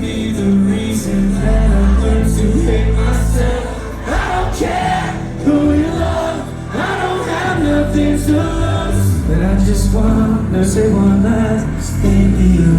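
Live rock band playing loud, with heavy bass, cymbal hits and a singing voice.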